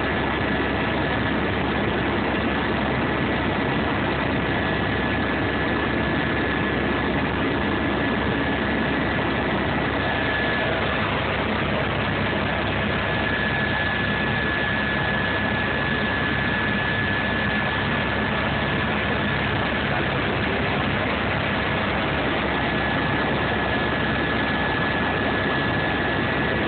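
Aircraft cabin noise in flight: a loud, even engine drone with a constant high-pitched whine on top, unchanging throughout.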